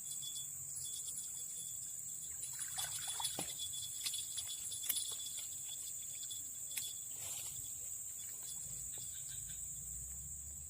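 Steady high-pitched chorus of insects, crickets or katydids, trilling without a break, with a few faint clicks and brief rustles over it.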